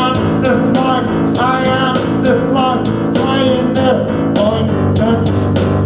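Rock song with electric guitar and a man's sung vocal, played loud.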